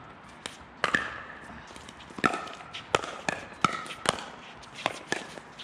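Pickleball paddles hitting a hard plastic ball in a rally: a string of sharp pocks, each with a brief ringing tone, about one every half second at an uneven pace.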